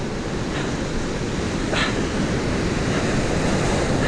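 Ocean surf washing and breaking close in over a rocky shore, with wind buffeting the microphone. The surf grows a little louder in the second half as a wave breaks, and a short sharper hiss stands out about two seconds in.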